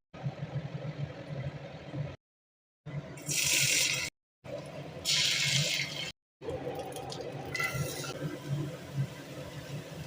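Water running from a kitchen tap in short bursts of hiss, each about a second long, over a low steady background. The sound breaks off abruptly several times where clips are cut together.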